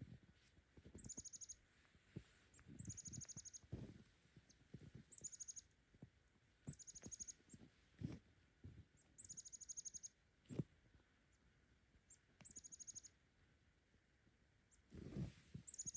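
A small songbird calling faintly, a high note that drops into a short, fast trill, repeated about every two seconds. Low crunches and thuds of work in packed snow come in between.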